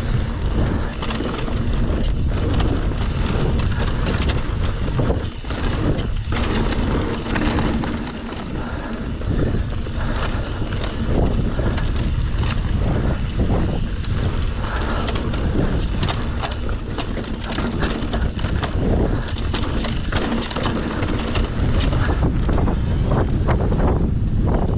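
Riding an electric mountain bike down a dirt trail: wind rushing over the microphone, with tyre noise and frequent knocks and rattles from the bike over the rough ground.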